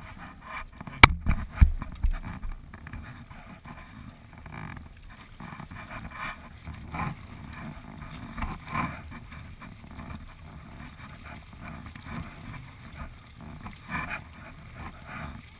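Water splashing and lapping around a paddled canoe and its outrigger floats, with paddle strokes. A few sharp knocks between one and two seconds in.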